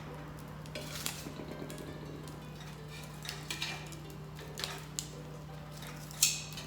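Metal cookware and utensils clinking and knocking in a handful of separate strikes. The loudest comes near the end and rings briefly.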